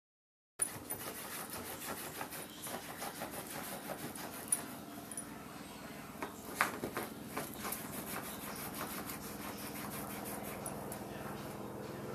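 Bedlington terrier puppy digging and scratching at a fabric dog bed with its claws: a dense run of rasping scratches on cloth, with a few sharper, louder strokes near the middle.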